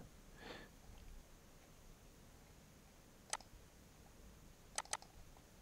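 Computer mouse clicking against near silence: a single click about three seconds in, then a quick double-click near the end.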